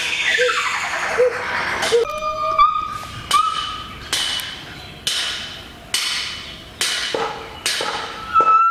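Gibbons singing: a series of loud calls, about one a second, each trailing off, with clear held high notes a couple of seconds in.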